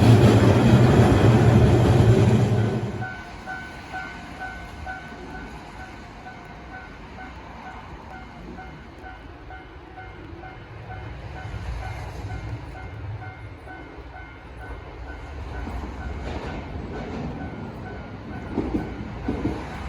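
A Hankai Tramway tram passes close by with a loud rumble that falls away about three seconds in. A level crossing's warning bell is left ringing, a steady repeated ding, until it stops about three quarters of the way through.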